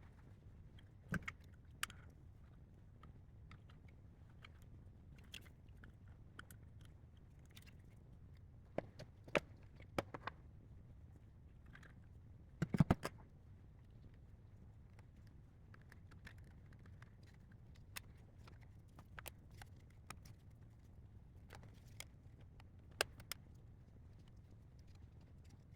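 Scattered light clicks and taps from hands working on a Honda Civic i-MID display unit as its new LCD screen is fitted into the housing, with a quick cluster of louder clicks about 13 seconds in, over a low steady hum.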